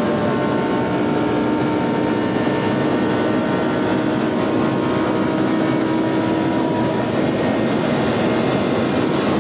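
Lamborghini Huracán's V10 engine droning steadily in seventh gear as the car gains speed slowly past 300 km/h, heard inside the cabin under a constant rush of wind and road noise.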